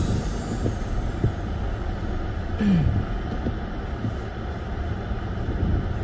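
Inside a car driving slowly on a snow-covered road: a steady low rumble of engine and tyres, with a brief falling tone about two and a half seconds in.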